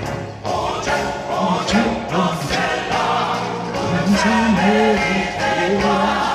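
Gospel choir singing in parts, backed by a live band with keyboards and a steady drum beat.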